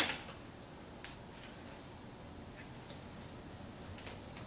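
A gloved hand touching and rubbing thin titanium foil stovepipe: a light crinkly tap at the start and another about a second in, then faint rubbing over quiet room tone.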